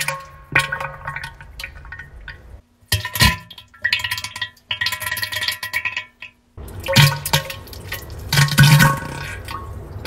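Diarrhea sound effects: a series of wet, spluttering bursts with short breaks between them.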